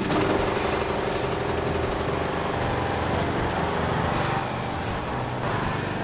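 Ride-on lawn tractor's petrol engine running steadily, just started with the ignition key.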